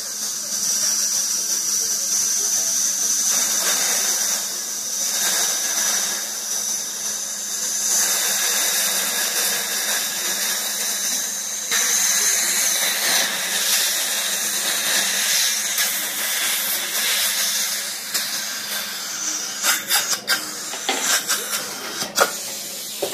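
Dental suction tip hissing steadily, with a faint high whistle, while the assistant holds it in the patient's mouth. The hiss gets louder twice, and several sharp clicks come near the end.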